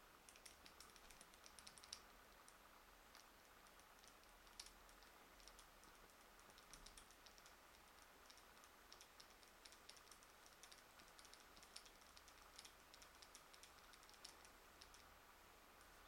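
Faint, quick, irregular clicking from a Shimano Chronarch 51E baitcasting reel as it is turned and handled in the hands.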